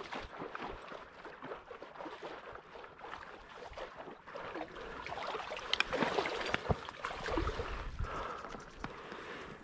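Water sloshing and splashing as a person wades through shallow marsh water in chest waders, with reeds brushing against him. It gets louder past the middle.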